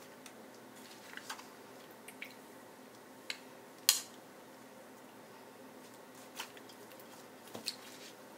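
Plastic serving spoons clicking against each other and a glass bowl as seafood is spooned onto papaya salad: a few scattered light clicks, the loudest about four seconds in, over faint room tone.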